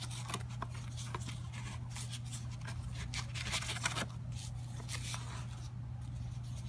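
Cardboard packaging being opened and handled by hand: the inner tray sliding out of its box, with a string of light scrapes, rustles and taps, busiest about three to four seconds in, and a foam sheet being rubbed. A steady low hum runs underneath.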